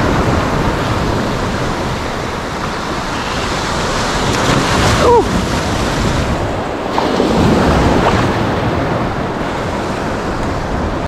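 Ocean surf washing and breaking around a wader, with wind buffeting the microphone. A short falling tone cuts through about five seconds in.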